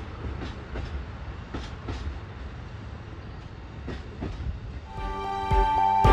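JR Central KiHa 85 series diesel train moving away, its diesel engines rumbling low and its wheels clacking over rail joints now and then. Music comes in about five seconds in.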